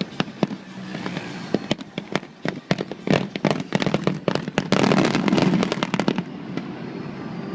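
Fireworks going off: a quickening series of sharp bangs that thickens into a dense barrage about five seconds in, then stops suddenly about six seconds in.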